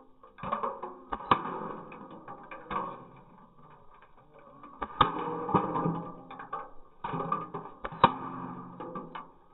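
G36C airsoft electric rifle firing in bursts of rapid clicks, three strings of shots with a pause in the middle, over background guitar music.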